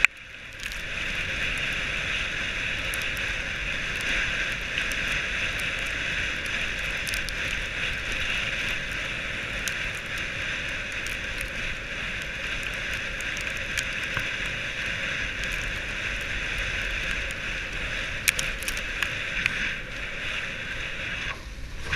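Dog sled gliding over packed snow: a steady hiss from the runners, with scattered light clicks and ticks.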